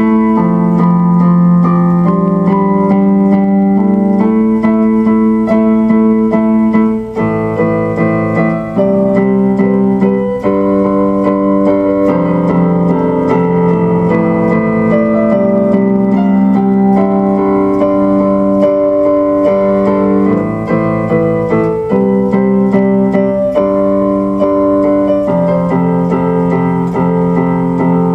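Electric piano music played on a keyboard: slow, held chords over a low bass line, the notes changing every second or two.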